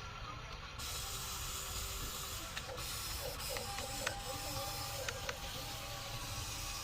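Electric motors and gearboxes of a radio-controlled toy construction vehicle whirring as it works. A few sharp clicks come through, and a wavering whine rises in the middle.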